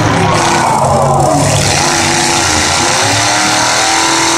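Engines of several demolition derby cars revving hard at once, their pitch rising and falling over and over above a steady rumble.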